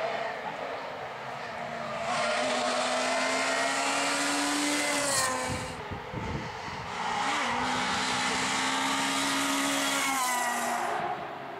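Rally car engine held at high revs as the car comes along the stage, dropping off briefly about halfway through, then running hard again and passing close by near the end.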